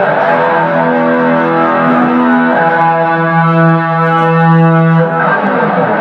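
Electric guitar played solo, with no drums behind it, holding long sustained notes: a higher note, then a lower one from about the third second, breaking into busier playing near the end.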